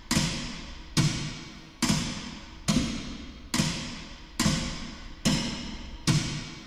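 Intro music: a slow, steady percussion beat, eight evenly spaced drum hits a little under a second apart, each one dying away before the next.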